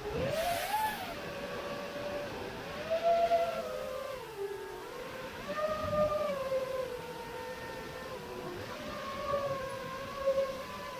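Brushless motors and propellers of a 5-inch FPV freestyle quadcopter whining, heard from the camera on board; the pitch rises and falls as the throttle changes, with several louder surges. A short rush of air comes right at the start.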